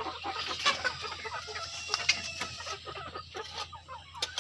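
Domestic chickens clucking in a coop, many short calls overlapping, with a couple of sharp knocks.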